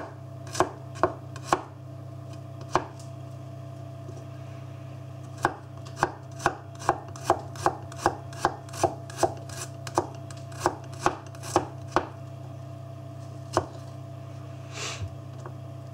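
Raimund Carl fixed-blade knife slicing garlic cloves on a wooden cutting board: sharp knocks of the blade through the clove onto the board. A few scattered cuts come first, then after a short pause a steady run of about two to three cuts a second, with a steady low hum underneath.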